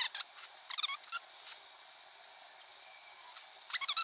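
Tiny steel screws and a small screwdriver clicking and scratching against a brass model engine's crankcase cover as the screws are picked up and driven in. The sound comes in short clusters of light ticks, near the start, about a second in and again near the end.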